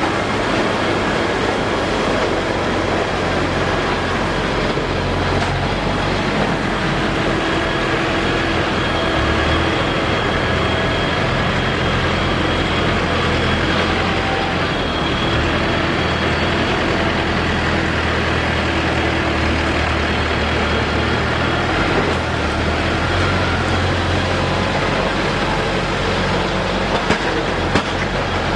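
Heavy diesel snow-removal machines, Volvo wheel loaders among them, running together in a steady loud drone with a few steady whines over it, while a compact Holder sidewalk tractor passes close by.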